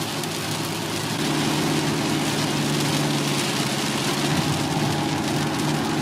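Heavy rain hitting the car's windshield and body, heard from inside the moving car, over a steady engine and road hum that grows louder about a second in.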